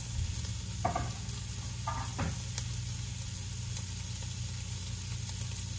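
Sliced peppers sizzling in a hot frying pan, a steady frying hiss over a low steady hum, with two faint brief sounds about one and two seconds in.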